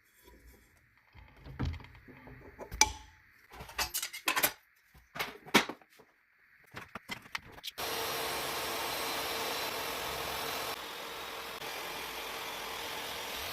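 Metal tools and parts clicking and knocking in irregular clusters while a table saw blade is changed. About eight seconds in, a steady whirring noise with a hum starts abruptly and runs on, dropping a little in level a few seconds later.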